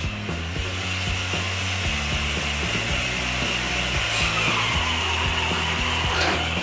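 Traxxas TRX-4 scale crawler's electric motor and geared drivetrain running as the RC truck drives, a steady high whine that grows a little stronger about two seconds in.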